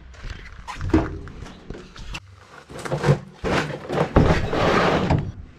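Plastic bait tubs and bags being handled and moved about on a van floor: a knock about a second in and another about three seconds in, then a couple of seconds of scraping and rustling.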